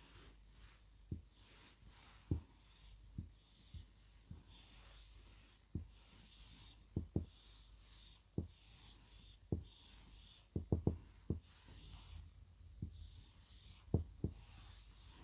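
Marker pen drawing on a whiteboard: faint hissing strokes, with light taps as the tip meets the board a dozen or so times, a few clustered close together near the two-thirds point.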